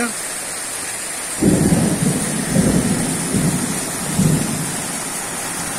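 Thunder during a rainstorm: steady rain falls throughout, and about a second and a half in a loud low rumble of thunder starts suddenly and rolls on for about three seconds, swelling several times before dying back to the rain.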